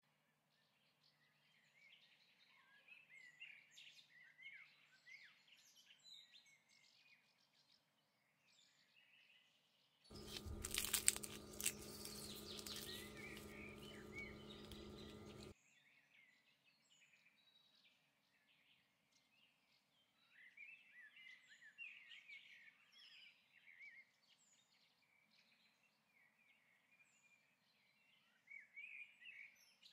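Near silence with faint bird chirping, and a louder stretch of about five seconds near the middle, with crunching that fits a crisp fried pastry being broken open.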